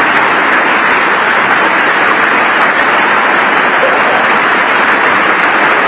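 A hailstorm: hail and heavy rain falling hard, a loud, steady, dense hiss with no let-up.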